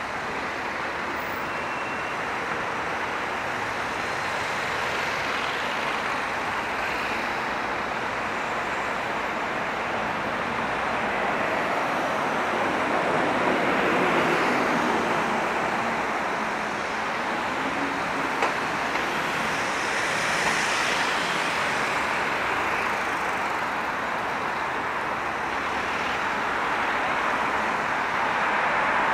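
Steady road traffic noise of cars passing on a city street. It swells louder about halfway through and again a few seconds later as vehicles go by.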